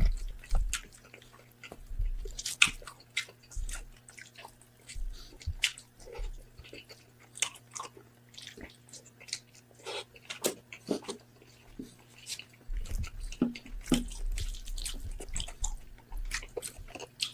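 Close-up eating sounds of roasted pork head being bitten and chewed: irregular wet smacks and sharp clicks of the mouth, with heavier chewing thumps in the last few seconds and a faint steady hum underneath.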